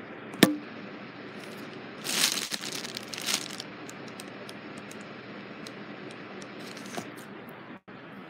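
Handling noise: a sharp knock about half a second in, then rustling and crinkling for about a second and a half, with a few faint ticks afterwards.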